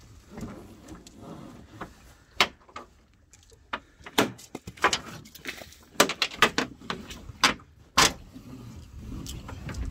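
Sharp knocks and clanks on an aluminium dinghy's hull as a weighted crab-pot rope is hauled in over the side by hand. About fifteen separate knocks, bunched from a couple of seconds in, with the last loud one about eight seconds in.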